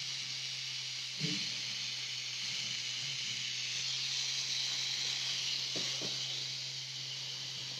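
Pen-style rotary tattoo machine running with a steady low hum under a constant hiss.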